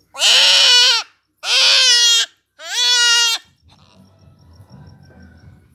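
A young goat bleating loudly three times, each call about a second long, in distress while restrained on the ground for an operation. Faint low rustling follows the last call.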